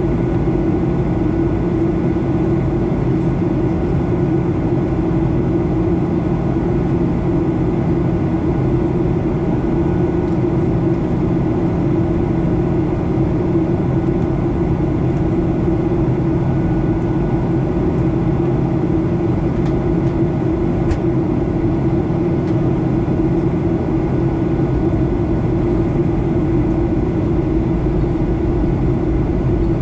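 Steady cabin noise of a Boeing 737-800 in descent, heard from a window seat beside the wing: the even rush of its CFM56-7 turbofan engines and the airflow, with a low steady hum and a few faint steady whines over it.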